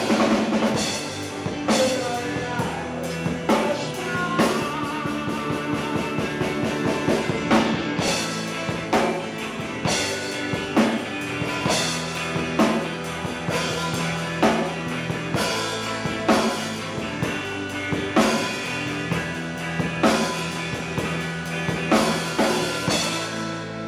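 Live rock band playing: electric guitars, bass and drum kit with a sung vocal over the first few seconds. Just before the end the drums stop and the guitars ring on.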